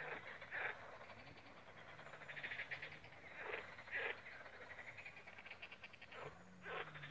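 Frogs croaking in short, rapidly pulsed calls, several times, over a faint steady low hum.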